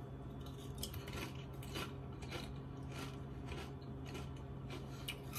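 Biting and chewing Flamin' Hot Lemon Doritos tortilla chips: a quiet run of small, crisp crunches, several a second and irregular, over a steady low hum.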